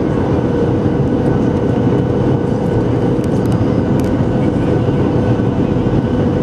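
Steady cabin noise of a Boeing 737-700 in flight, heard from a seat over the wing: the rush of its CFM56-7B turbofan engines and airflow, with a steady hum running through it.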